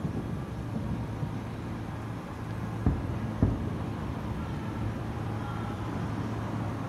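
Two distant fireworks shells bursting, dull booms about half a second apart a few seconds in, over a steady low background hum.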